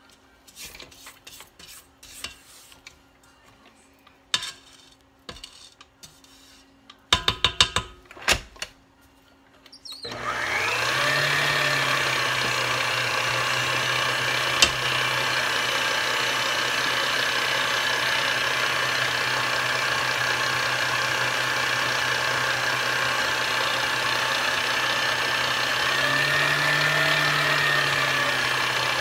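Light scraping and clicking in a mixing bowl, with a cluster of sharp knocks about seven to eight seconds in. About ten seconds in, an electric mixer starts, winds up and runs steadily, mixing cake batter. Its pitch briefly rises and falls near the end.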